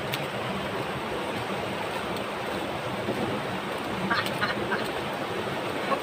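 Fast-flowing river rushing over rocks, a steady noise. About four seconds in comes a brief run of a few short sounds.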